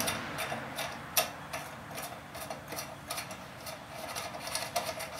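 Small, irregular metallic clicks and ticks of a 1/4-20 threaded rod, nuts and washers being turned and fitted by hand through a metal spine joint, with one sharper click about a second in.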